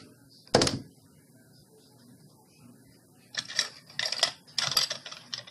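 A single sharp knock on the tabletop about half a second in, then four short scrapes of a paintbrush working paint on a paper-plate palette near the end.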